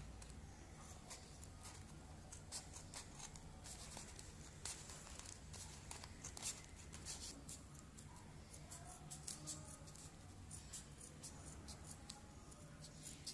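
Scissors cutting through folded crepe paper: many faint, irregular snips.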